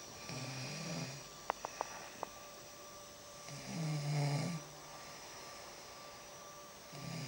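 A woman snoring in her sleep: three low snores about three seconds apart, each lasting about a second, the last starting near the end. A few sharp clicks come between the first and second snores.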